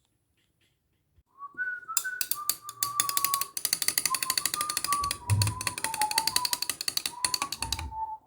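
Nescafé Dolce Gusto capsule machine running its pump with a rapid, even rattling that starts a second or so in and stops just before the end. Over it, a whistled tune steps from note to note and carries on after the rattling stops.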